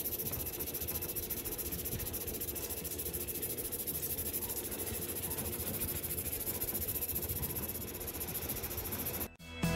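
Felt-tip marker rubbing on paper in rapid, even back-and-forth colouring strokes, over a steady hiss; it cuts off near the end.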